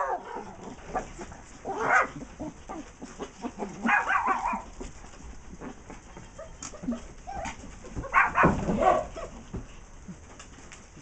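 Small dogs barking and yapping in short bursts: a bark about two seconds in, a longer, higher yelp around four seconds, and a cluster of barks around eight to nine seconds. Between the barks there are light scrabbling clicks of paws on the taut plastic tarp.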